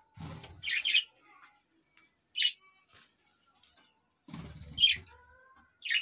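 Budgerigars giving short, sharp, high chirps, four separate calls spread across a few seconds. Twice a low rumbling noise runs under them for about half a second to a second.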